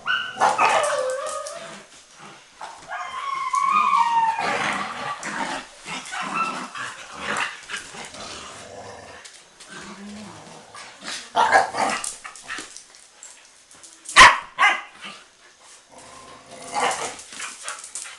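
Several young dogs playing rough together, with irregular barks and yips and many short clicks and scuffles. A single sharp, loud sound about two-thirds of the way through stands out above the rest.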